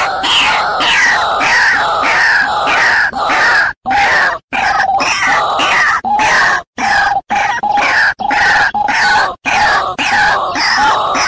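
White-breasted waterhen (ruak-ruak) calls: harsh croaking notes repeated several times a second in a continuous series, broken by a few short silences. A recorded lure call used to draw the birds in for trapping.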